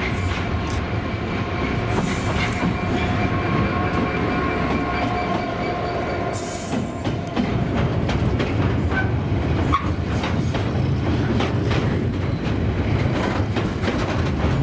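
A Class 66 diesel locomotive hauling a train past, with its two-stroke V12 engine running and a steady rumble of wheels on track. There are rapid clicks over the rail joints, and from about six seconds in, high-pitched wheel squeal comes and goes.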